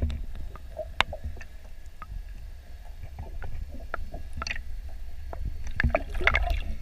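Small boat on the water: scattered light knocks, clicks and splashes against the hull over a low steady rumble, with the knocks coming thicker near the end.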